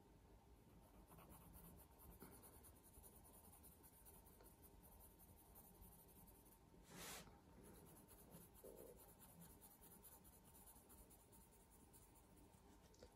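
Faint scratching of a coloured pencil shading on cartridge drawing paper, in quick, closely spaced strokes. One brief soft hiss about seven seconds in.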